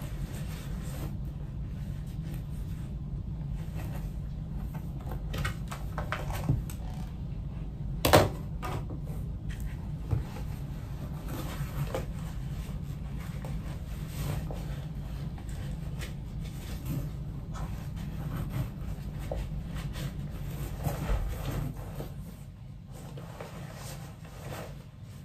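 Handling noise as a laptop in a hard plastic shell case is worked into a canvas tote bag: rustling cloth and scattered knocks and clicks of the case, the loudest a sharp knock about eight seconds in. A steady low hum runs underneath.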